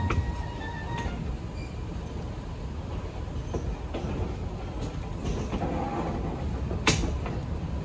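Passenger railroad coach rolling along the track: a steady low rumble with a few sharp clicks and knocks from the wheels on the rails, the loudest near the end.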